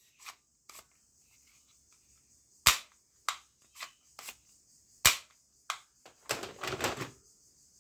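Toy guns firing: single sharp shots at irregular gaps, three of them much louder than the rest, then a quick rattling burst near the end.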